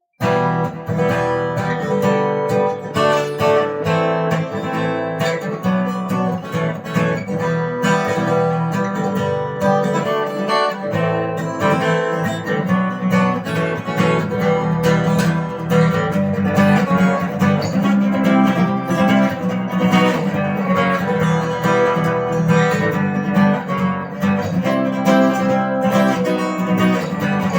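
Guitar strummed in a steady rhythm, playing the instrumental introduction of a song.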